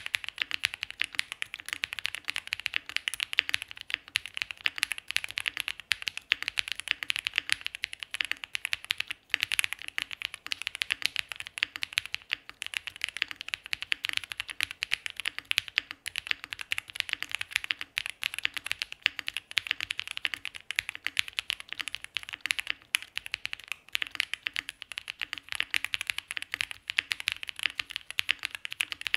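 Continuous typing on a Cub65 65% mechanical keyboard with a polycarbonate flex-cut plate, lubed Ceptify Polar Panda tactile switches (Krytox 205g0) and GMK keycaps: a steady stream of key clacks that starts abruptly, with one brief pause about nine seconds in.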